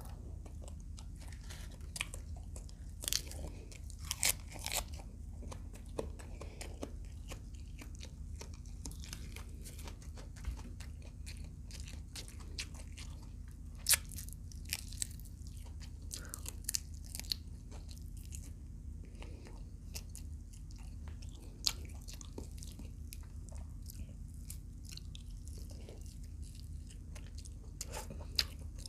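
Close-up chewing and crunching of fried adobo quail, with scattered sharp crunches, the loudest about halfway through, over a steady low hum.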